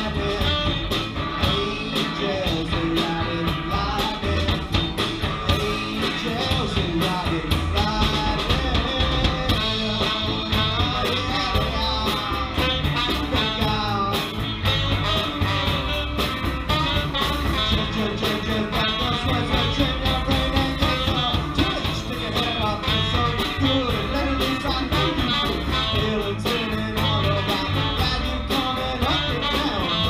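Live band playing a song on electric guitars, saxophone and trombone over drums, with a wavering lead melody line on top.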